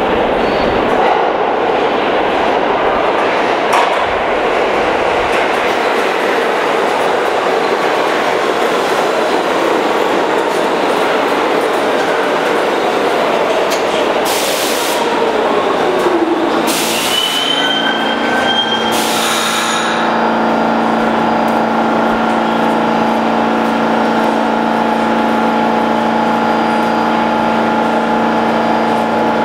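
R46 subway train pulling into an underground station with loud echoing wheel and track noise. Its whine falls in pitch as it brakes, with three short hisses about halfway through. The stopped train then gives off a steady hum.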